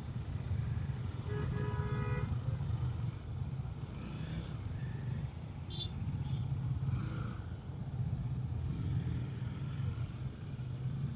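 Honda CBR sport bike's engine running at low speed while filtering through slow traffic, a steady low hum. A brief tone stands out about a second and a half in.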